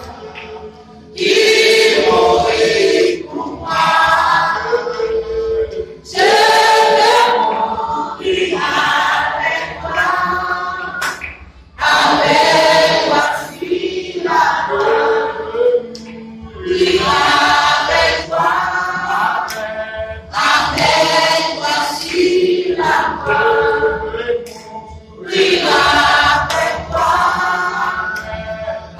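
Small mixed group of women and men singing a hymn together a cappella, in phrases with short breaks between them.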